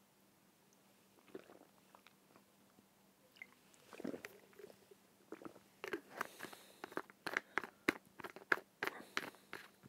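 Quiet, irregular clicks and crunching crackles starting about four seconds in and coming faster and louder toward the end.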